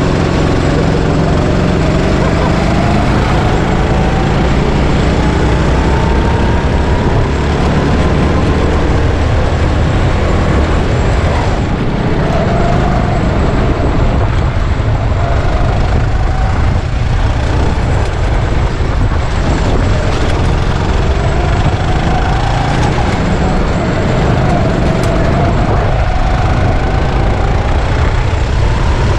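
Go-kart engine running hard over a steady low rumble. Its pitch climbs slowly over several seconds and drops back a few times.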